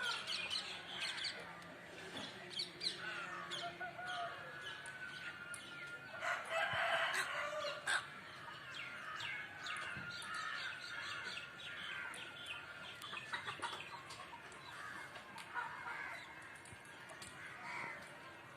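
A flock of parrots calling with many short, sharp chirps and squawks. A louder, harsh call lasts about two seconds around six seconds in.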